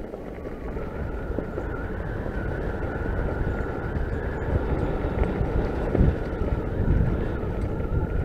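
Norco Fluid FS3 full-suspension mountain bike rolling over a leaf-covered dirt trail: tyre rumble and drivetrain rattle, with wind on the microphone, gradually growing louder. A faint steady whine runs through it.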